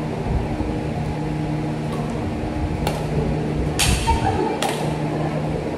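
Steady mechanical hum with a few sharp knocks about three, four and four and a half seconds in, the one near four seconds the loudest.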